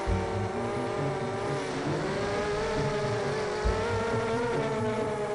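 FPV racing quadcopter's electric motors whining steadily, the pitch dipping and climbing back about two seconds in.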